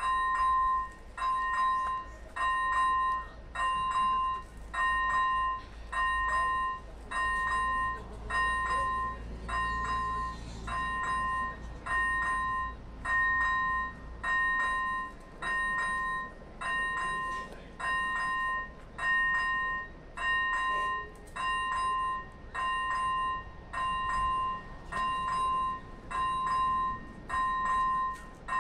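AŽD ZV-01 electronic level-crossing bell ringing steadily, a ringing two-tone ding repeated about four times every three seconds. It sounds with the flashing red lights as the warning that the crossing is closed to road traffic.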